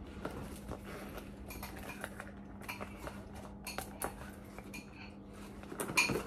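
Handling of a round handbag: light rustling with many small clicks and clinks, like its metal strap clip and hardware knocking, and a louder knock near the end. A faint steady hum sits underneath.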